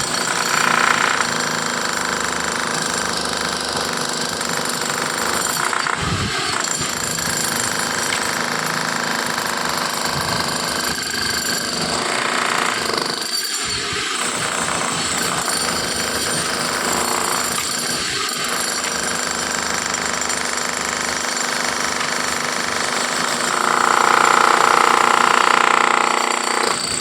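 Machinery cutting a concrete slab, running continuously with a steady harsh noise. It grows louder for a couple of seconds near the end.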